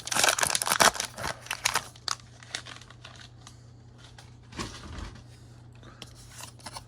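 Foil wrapper of a Pokémon booster pack being torn open and crinkled, densest in the first two seconds, then a few lighter rustles and clicks as the cards are handled.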